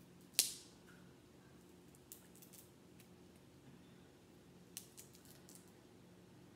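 A crab leg's shell, cooked too crispy, cracked apart by hand: one sharp crack about half a second in, then a few lighter cracks and clicks about two seconds in and again near five seconds as the shell is pried open.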